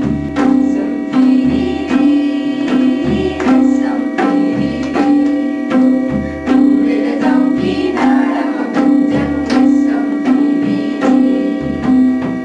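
Music of hand drums playing a steady repeating beat, a deep stroke about every second and a half, over held drone tones.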